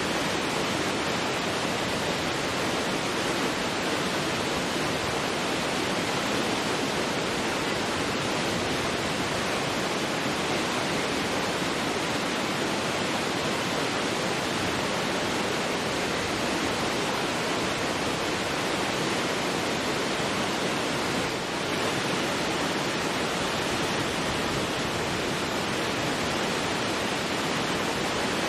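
Large waterfall crashing steadily, a dense, even rush of falling water with no let-up.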